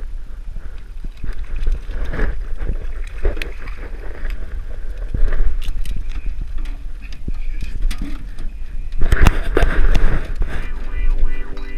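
Steady low rumble of wind on an action camera's microphone, with scattered knocks and clicks of handling. Guitar music comes in near the end.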